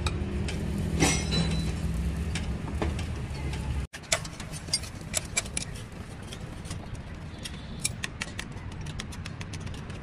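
A machine runs steadily with a low hum while metal clinks sound, until an abrupt cut about four seconds in. After the cut come scattered sharp metallic clinks and taps of work on steel parts.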